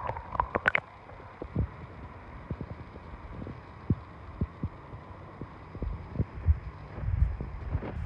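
Muffled underwater sound of a shallow river, picked up by a phone held beneath the surface: a low rumble of moving water with scattered knocks and clicks, several sharp clicks close together in the first second.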